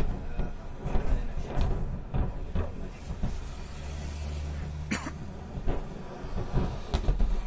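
Exploding ammunition at a burning munitions depot, heard from a distance: a run of low booms and rumbling, with one sharp crack about five seconds in.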